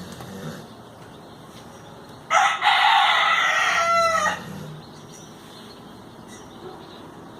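A rooster crows once, loudly, starting about two seconds in and lasting about two seconds, its call falling in pitch at the end. Faint low snoring breaths recur every few seconds underneath.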